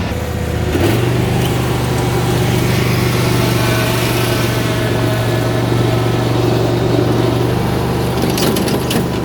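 Exmark mower's engine running steadily. It speeds up about a second in, then holds an even pitch. A few clicks come near the end.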